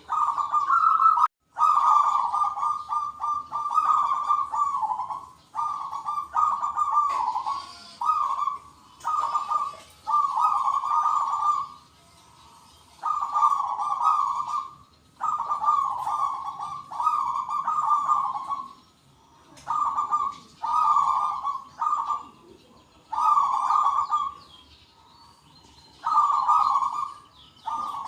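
Zebra doves (perkutut) cooing: repeated rapid, trilled coo phrases one to two seconds long with short gaps between them, several birds calling back and forth.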